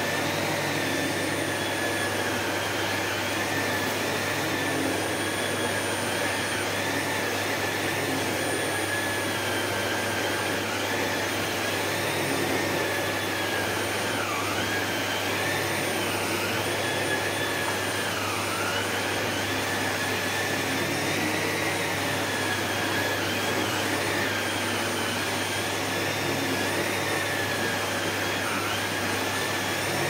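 Electrolux SilentPerformer Cyclonic bagless canister vacuum (650-watt motor) running steadily while its Numatic Airo Brush turbo head is pushed back and forth over a thick rug. A high whine over the rushing air wavers and dips briefly now and then.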